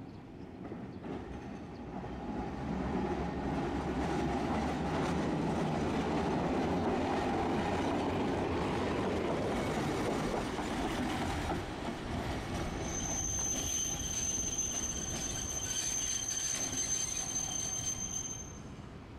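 Tosaden streetcar no. 630 passing close by with a rising and then fading rumble of wheels on rail. About thirteen seconds in, its wheels start a steady high-pitched squeal as it rounds the curved track, which stops shortly before the end.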